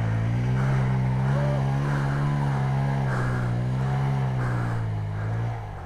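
Honda Grom's 125 cc single-cylinder four-stroke engine running under light throttle, its pitch rising and falling slightly, then dropping away suddenly near the end.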